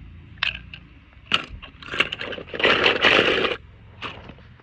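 Hands handling small toy cars and a clear plastic tub: scattered clicks and taps, then about a second of dense scraping and rustling a little past the middle.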